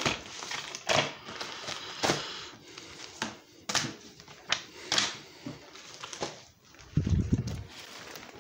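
Irregular rustles and clicks of handling noise as a handheld phone and a paper catalogue are moved about, with a low thump about seven seconds in.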